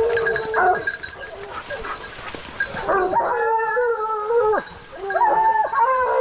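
A pack of hunting hounds baying in long, overlapping howls, several voices at once, as they give tongue on roused wild boar. The baying is fainter at first and grows loud about halfway through, with a brief break near the end.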